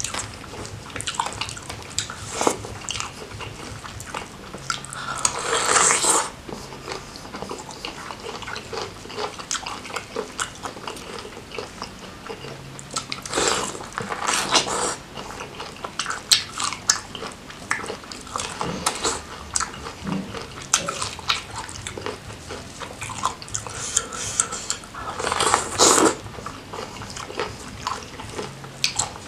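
Close-miked eating: crab and prawns in Padang sauce being bitten and chewed, with many sharp clicks and cracks of shell and three longer, louder swells of wet noise about six, fourteen and twenty-six seconds in.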